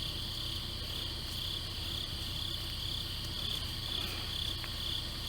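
Crickets chirping in a steady high pulsing chorus, about two pulses a second.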